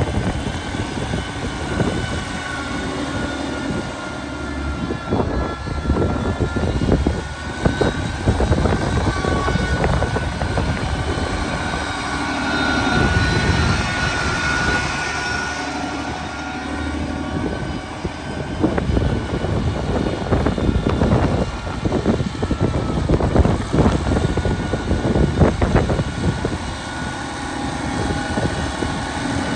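A 1964 International 706 tractor's six-cylinder gasoline engine running steadily as the tractor is driven slowly.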